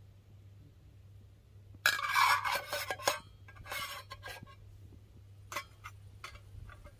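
Camping gear being handled: hard objects clinking and rattling in a busy flurry about two seconds in, a shorter one a second later, then a few single clicks.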